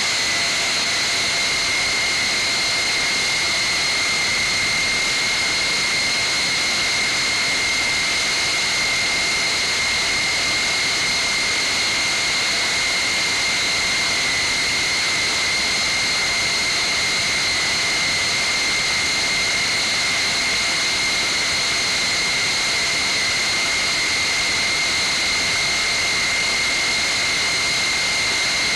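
Boeing KC-135A's Pratt & Whitney J57 'stovepipe' turbojet engines running steadily during a ground maintenance run: a loud, even rush of jet noise with a steady high-pitched whine that holds the same pitch throughout.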